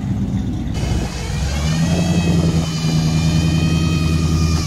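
Pickup truck engine running at a steady speed as it drives past, with a high whine over the engine hum.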